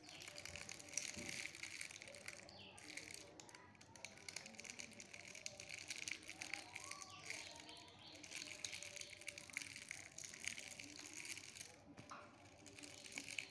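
Faint voices of people talking, over a steady high hiss.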